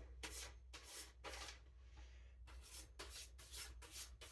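Knife blade being stropped in quick, faint back-and-forth swishing strokes, about two to three a second, with a short pause about halfway through.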